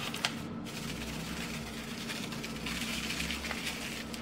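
Soft, steady rustling of a paper seasoning packet being shaken and emptied over a bowl of ground chicken, with a couple of light clicks near the start.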